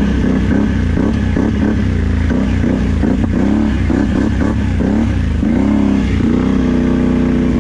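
Can-Am 850 ATV engine running loud on a trail ride, its pitch rising and falling again and again as the throttle is worked. From about six seconds in it holds a steady pitch.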